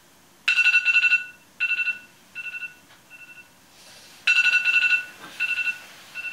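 Electronic alarm tone going off to wake a sleeper: a long trilling beep followed by three shorter, fainter ones, the pattern starting over about four seconds in.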